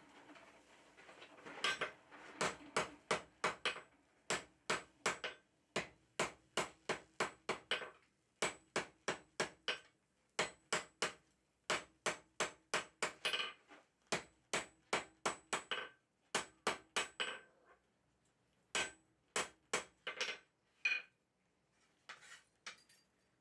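Blacksmith's hand hammer striking hot iron bars on an anvil, setting and working a forge weld: quick runs of blows, about two to three a second, with short pauses between runs. The blows grow fewer and lighter near the end.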